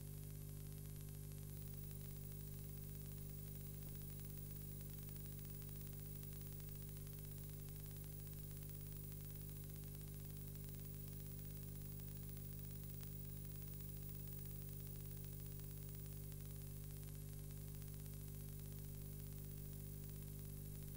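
Steady electrical mains hum with a layer of hiss, unchanging throughout.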